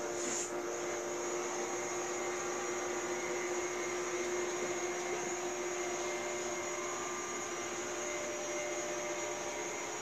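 Robot vacuum cleaner running steadily: an even fan whir with a constant motor whine.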